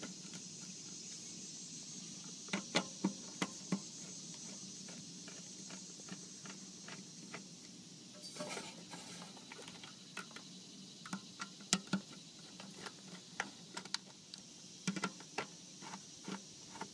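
Faint, scattered metal clicks and taps, some in quick runs, as a screwdriver works the terminal screws and wire connections on an electric water heater element.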